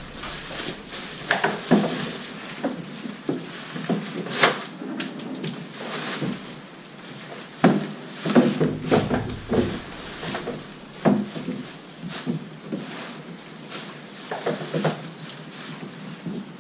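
Handling noise from fitting a wheeled kayak cart to the plastic hull of a Fury One fishing kayak: irregular clunks, knocks and rattles, the loudest about four and a half seconds in and around eight seconds in.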